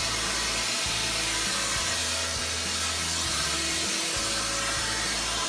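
Vacuum cleaner motor running steadily as the hose and wand are held up to a shelf, a constant rushing hiss, with background music over it.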